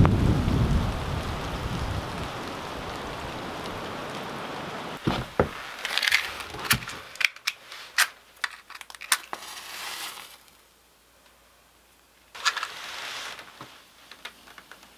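Rain hiss fading out over the first few seconds, then a run of sharp clicks and knocks from handling wood and kindling in a wood stove's firebox. About twelve seconds in, a match is struck and flares with a brief hiss, followed by faint crackling as the flame catches.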